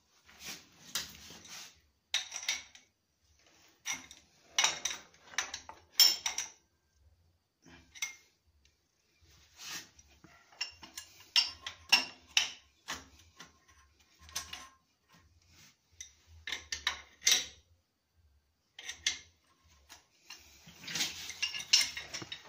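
Metal wrenches clinking and scraping against a toilet's shut-off valve and supply pipe fitting as it is tightened by hand: irregular clicks and clanks with pauses between them, busiest near the end.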